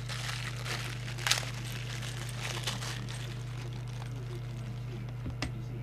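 Plastic packaging crinkling and a few sharp clicks as a microphone is taken out and handled, over a steady low hum.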